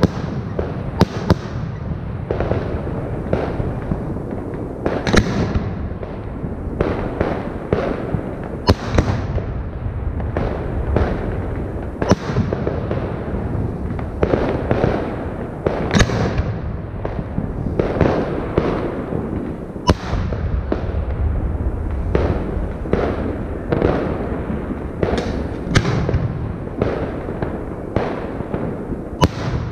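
Fireworks display: aerial shells bursting in quick succession, sharp bangs every second or two over a continuous low rumble.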